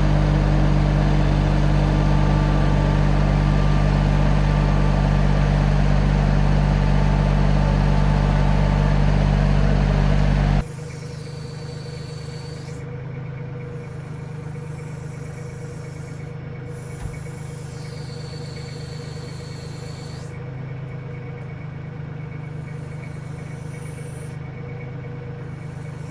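Backhoe engine running steadily. About ten seconds in it cuts off abruptly, leaving a quieter, steady engine hum.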